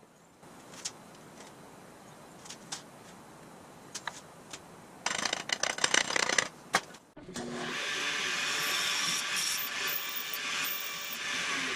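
Light clicks and tool handling, then a loud scraping, cutting noise for about two seconds. From about seven and a half seconds in, a power tool runs steadily with a low motor hum until it cuts off.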